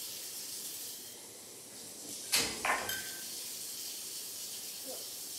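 African grey parrot on its cage: a sharp knock about two seconds in, a short squawk just after it, and a faint brief call near the end, over a steady hiss.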